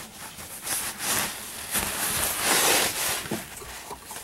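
Cloth upholstery rustling and brushing close to the microphone as it is handled, in several irregular swishes, loudest about two seconds in.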